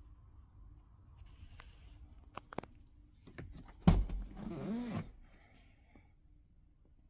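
Front seat of a Porsche 911 (996) being worked by hand: a few light clicks, then a sharp knock about four seconds in, followed by about a second of creaking with a wavering pitch as the seatback is released and tipped forward.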